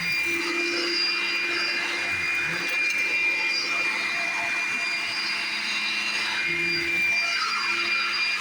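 Vacuum cleaner running steadily with a high whine over its air noise. Its lower hum dips briefly a few times: right at the start, about two seconds in, and near the end.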